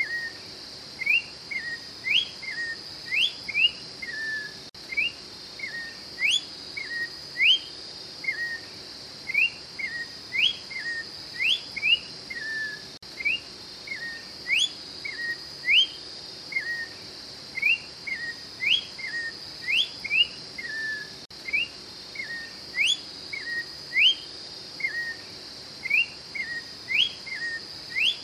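Orange-backed troupial singing: a steady run of short whistled phrases, each a quick rising note followed by a lower falling note, about one phrase a second, over a steady high hiss.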